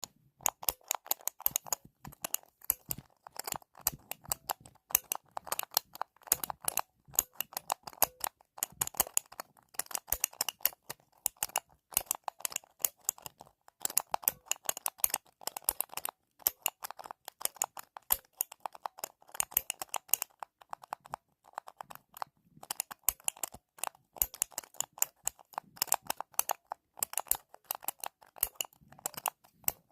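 Typing on a computer keyboard: quick runs of key clicks and clacks, several a second, broken by short pauses.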